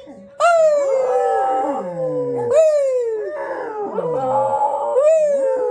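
Dogs howling along with a tornado siren, set off by it. The siren holds a steady tone underneath while the howls start three times, about two seconds apart, each sliding down in pitch with several voices overlapping.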